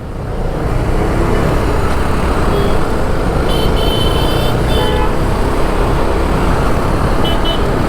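Motorcycle riding off through traffic: a steady rumble and wind rush that builds over the first second as it pulls away. Other vehicles' horns toot several times in the middle and again near the end.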